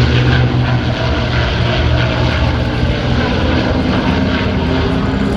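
P-51 Mustang warbirds' Packard Merlin V-12 piston engines droning steadily in flight.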